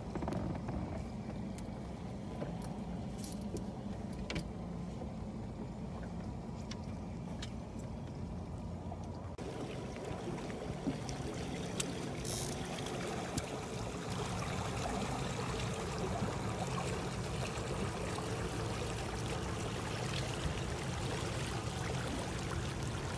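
A fishing boat's outboard motor running steadily at trolling speed, with water washing along the hull. The sound shifts about nine seconds in.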